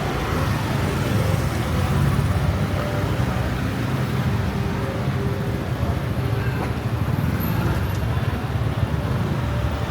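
Busy street ambience: a steady low rumble of road traffic with faint voices of passers-by mixed in.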